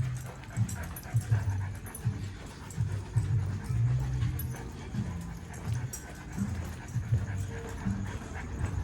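Puppy panting: a run of short, uneven breaths.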